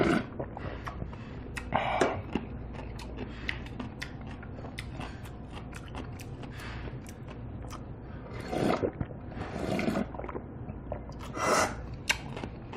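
A person eating cold naengmyeon noodles in broth: several short, loud slurps spaced through, with chewing and small clicks in between.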